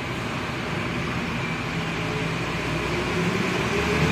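Steady mechanical drone and hiss with a faint low hum, growing slightly louder toward the end.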